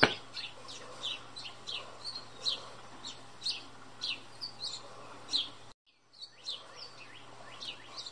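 Small birds chirping: a quick, irregular series of short, high, downward-sweeping chirps over a faint steady hum. A sharp click comes right at the start, and the sound drops out for a moment just before six seconds in.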